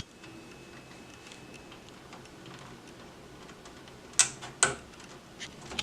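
Small plastic clicks and scrapes from a USB 3.0 front-panel cable connector being handled and pushed onto its keyed motherboard header. The sound is mostly faint, with two sharper clicks about four seconds in.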